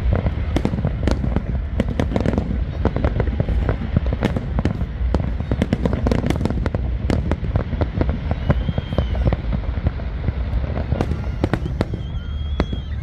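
Fireworks display going off in a continuous barrage: rapid overlapping bangs and crackles over a steady deep rumble.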